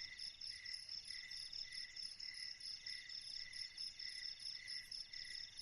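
Chorus of crickets and other insects: several trills at different pitches overlapping, the lowest pulsing in a slow, even beat.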